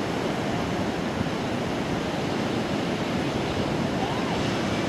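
Pacific Ocean surf breaking and washing up a sandy beach: a steady, even rush of waves.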